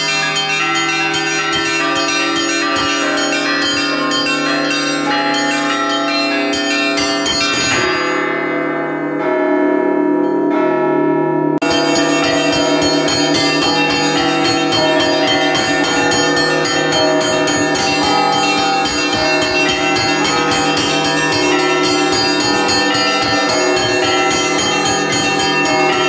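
Orthodox church bells rung by hand from ropes, heard up close in the belfry: a rapid, dense chiming of the small bells over the steady ringing of the larger ones. About eight seconds in the small bells pause for a few seconds while the bigger bells ring on, then the quick chiming resumes.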